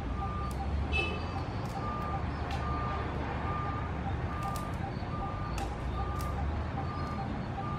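A regular electronic beep, one short tone about every 0.8 seconds, over a steady low engine rumble, like a vehicle's reversing alarm.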